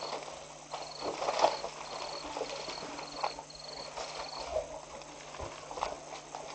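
African elephants scuffing and kicking in dry dust, with scattered knocks and scrapes. Over them an insect chirps steadily about twice a second, then falls silent about two-thirds of the way through.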